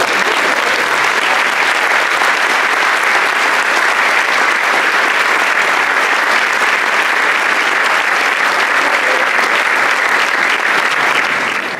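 Audience applause, dense and steady, dropping away near the end.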